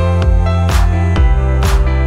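Electronic background music with a heavy, sustained bass line and a snare hit about once a second.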